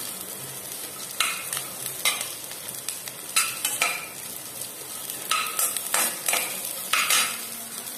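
Small onions sizzling in hot oil in a pan, stirred with a utensil that scrapes the pan in short strokes, about one a second at irregular intervals.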